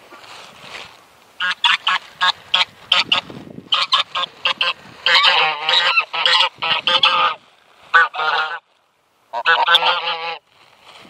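White domestic geese honking loudly: first a quick run of short honks, then longer strings of honks in bursts, with a short break near the end.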